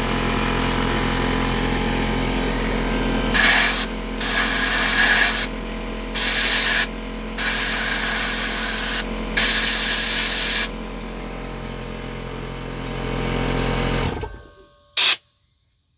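An air compressor runs with a steady hum while a blow gun fires five loud hissing bursts of compressed air between about 3 and 11 seconds in, blowing scale and gunk out of a tankless water heater. The compressor's hum stops about 14 seconds in, followed by one last short blast of air.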